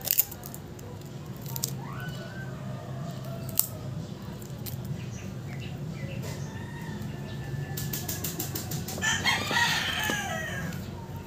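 A rooster crowing once, about nine seconds in, over a steady low hum. A few sharp clicks come near the start and at a few seconds in.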